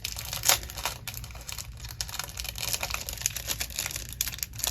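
Packaging and sticker sheets crinkling and rustling as they are handled: an irregular run of crackles, with one louder crackle about half a second in.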